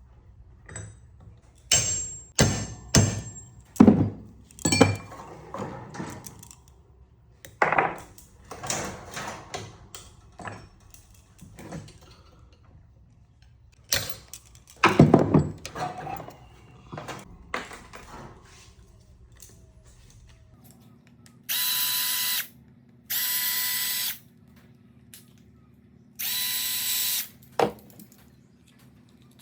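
Repeated clinks and knocks of metal parts being handled and tapped, then a power tool running in three short bursts of about a second each near the end.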